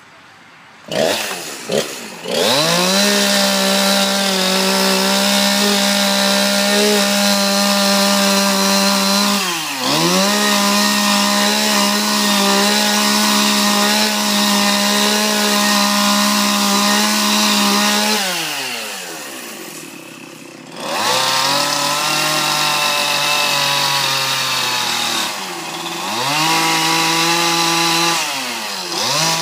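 Chainsaw starting up, then running at high revs for a wood carving, with the revs dropping off and picking back up several times as the throttle is eased and reopened.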